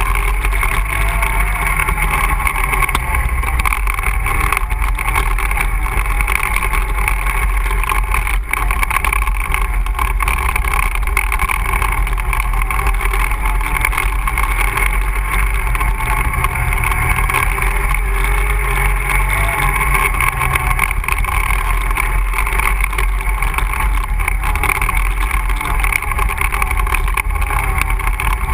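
ATV engine running steadily while riding a trail, its pitch drifting gently up and down with the throttle.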